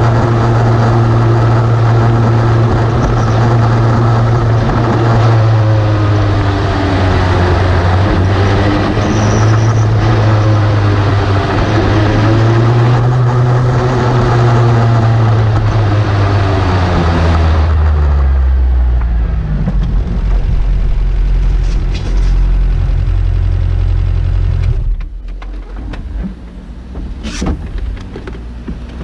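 Open-cockpit race car's engine heard onboard, running at low, steady revs as the car rolls slowly. About two-thirds of the way through it drops to a lower idle, then goes much quieter near the end, with a sharp click shortly after.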